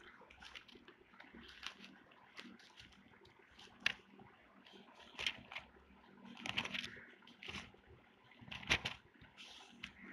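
Faint, irregular rustles and soft crackles of thin Bible pages being turned at a pulpit microphone.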